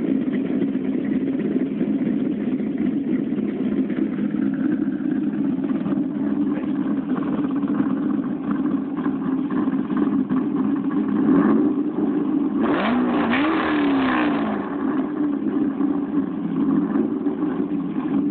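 C5 Corvette Z06's LS6 V8 idling with the choppy lope of a VRX5 aftermarket cam through a catless full exhaust on a semi-cold start. It is blipped once briefly about 11 seconds in, then revved a little higher and longer about 13 seconds in before it drops back to idle.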